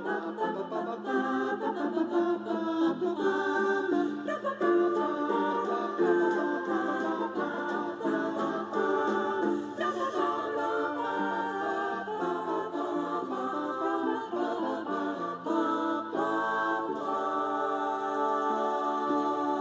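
Music: a group of voices singing together in close harmony, a cappella style, with sustained chord-like notes.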